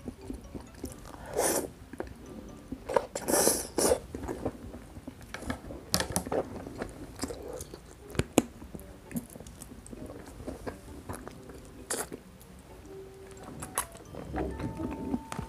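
Close-up chewing and biting of mouthfuls of sauce-covered rice, with short wet bursts and sharp clicks scattered through.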